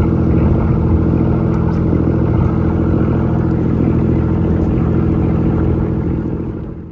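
A boat's engine running steadily with an even hum, fading out near the end.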